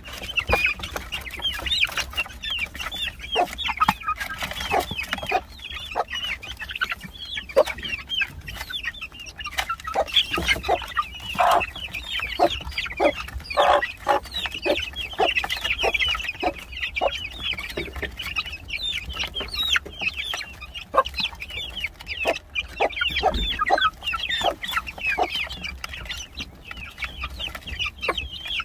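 A group of game-fowl chicks peeping continuously in high, quick chirps, with many short clucks mixed in.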